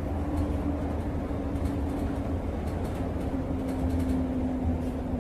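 Ride noise inside a moving public transit vehicle: a steady low rumble with a held hum over it.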